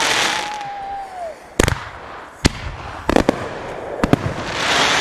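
Consumer aerial fireworks going off: a spell of crackling hiss with a whistle that falls in pitch at the start, then a run of sharp bangs, several in quick succession about three seconds in, and more hiss near the end.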